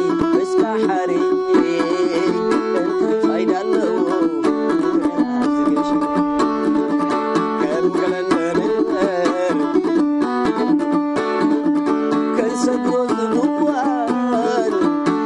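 A homemade wooden krar lyre plucked in a quick, repeating pattern of bright notes, with a man singing over it at times.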